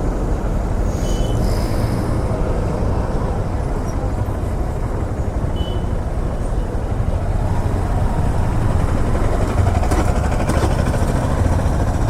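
Honda CB200X single-cylinder motorcycle running steadily on the road, with engine and road noise getting a little louder in the last few seconds. Two short high beeps come about a second in and again near the middle.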